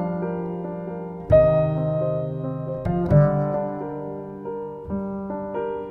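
Slow solo piano background music: chords struck every second or two, each left to ring and fade.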